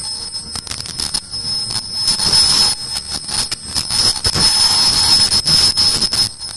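Automatic face mask making machine's ear-loop unit running: a steady high-pitched whine under rapid, irregular mechanical clicking and clacking.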